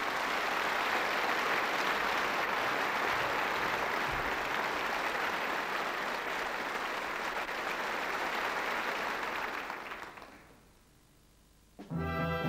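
Theatre audience applauding for about ten seconds, dying away to a brief hush. Instrumental music starts near the end.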